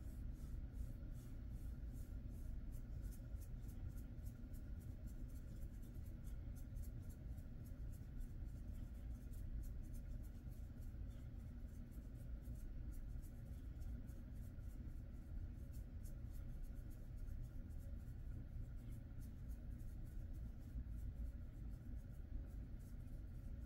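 Fingers rubbing and scratching through a Jindo dog's fur: a faint, continual scratchy rustle over a low steady room rumble.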